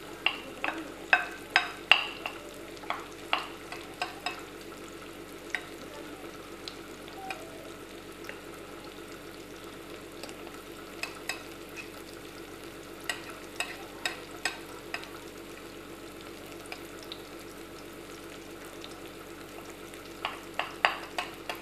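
Chopped shallots and garlic sautéing in a little hot oil in a frying pan, sizzling steadily, while a spatula stirs them and clacks against the pan in bursts of sharp knocks, at the start, midway and near the end.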